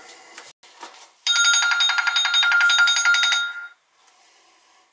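Phone ringing: a trilling electronic ringtone of steady tones pulsing rapidly. One ring of about two and a half seconds starts about a second in, just after the previous ring dies away.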